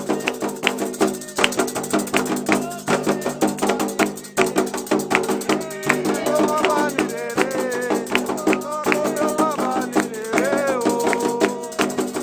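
Candomblé ritual music: percussion and rattles keeping a steady beat, with voices singing a chant to the orixás over it.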